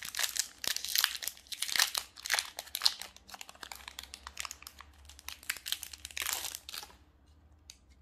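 Foil wrapper of a Magic: The Gathering collector booster pack crinkling and crackling as it is handled and torn open by hand, in quick irregular bursts that stop about seven seconds in.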